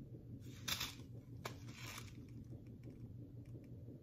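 Paper seed packet being handled: a few short rustles and a sharp click in the first two seconds, then faint small ticks.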